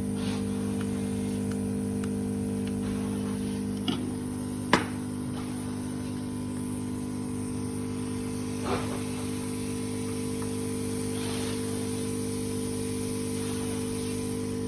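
Steady electrical hum with a few sharp clicks, the loudest about five seconds in.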